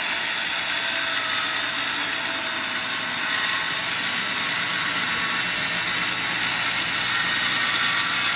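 Electric power saw running steadily as it cuts through timber.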